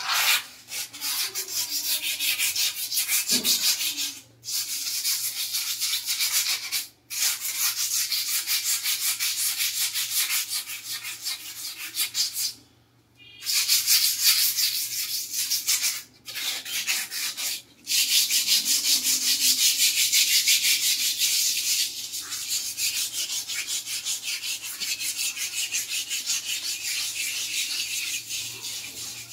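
Ceramic wall tiles being scrubbed by hand in quick back-and-forth strokes, a dense scratchy rubbing that stops briefly several times and once for about a second near the middle.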